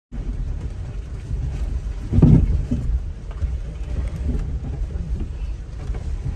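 Toyota Innova Crysta driving over a rough off-road track, giving a steady low rumble, with a louder thump about two seconds in.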